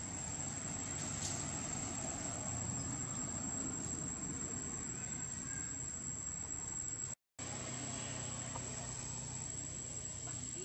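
Chorus of forest insects holding one steady, high-pitched tone over a low steady rumble, with a brief dropout about seven seconds in.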